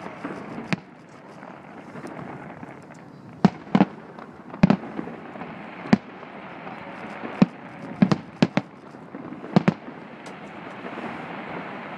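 Aerial firework shells bursting in a display: about a dozen sharp booms at irregular intervals, several coming in quick pairs, over a steady background wash.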